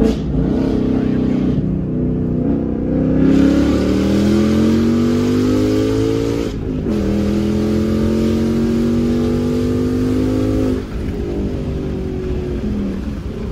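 A 2018 Ford Mustang GT's 5.0 L V8, breathing through catless headers, an X-pipe and an AWE Touring resonated catback, heard from inside the cabin under hard acceleration. The engine note climbs steadily, dips sharply at a gear change about halfway through, then climbs again. It falls away as the throttle is lifted about four-fifths of the way in. The tone is clean, without rasp.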